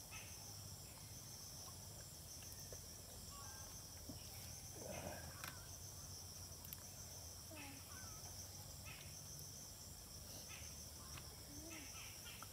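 Faint, steady high-pitched chorus of insects in the surrounding forest, with scattered small clicks.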